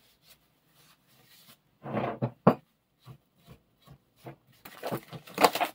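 Alcohol wipe rubbing over a cast-iron bench vice body, with a few light knocks as the vice is turned over on the wooden bench. The rubbing comes in short strokes and grows denser near the end.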